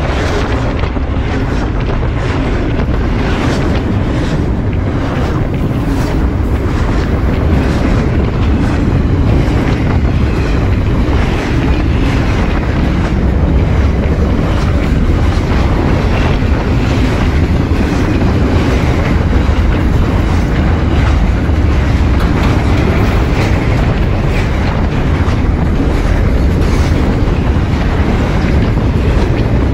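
Freight train's wagons rolling past close by: a steady loud rumble of steel wheels on the rails, broken by frequent sharp clicks as the wheels pass over the track.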